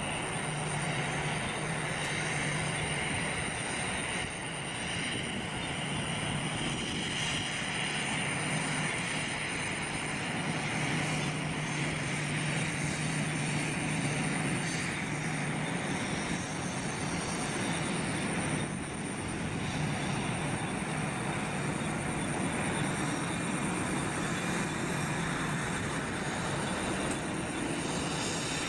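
Jet engines of an Airbus A320 airliner taxiing at low power: a steady rumble and hiss with a constant high whine, and a low hum that swells and fades now and then.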